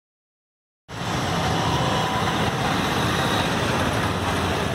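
Silence, then about a second in steady street traffic noise cuts in: road vehicles running past in a continuous rumble and hiss.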